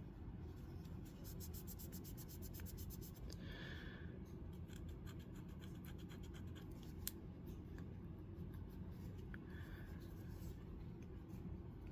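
Faint scratching and rubbing of small folding-knife parts being handled and cleaned, with a quick run of fine ticks early on and a single sharp click about seven seconds in.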